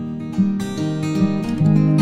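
Acoustic guitar music with strummed chords.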